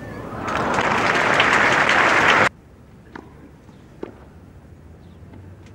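Tennis crowd applauding, swelling for about two seconds and then stopping abruptly. Afterwards two faint knocks come about a second apart.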